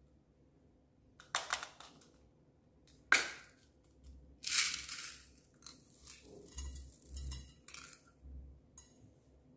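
A clear plastic heart-shaped container being opened, with a few clicks and then a sharp snap about three seconds in. Small beads then pour out with a rattling burst, followed by scattered light clinks as they fall into the slime bowl.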